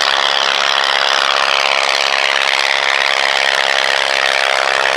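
Avro Triplane replica's piston engine running steadily as the aircraft flies low past, a continuous loud engine drone.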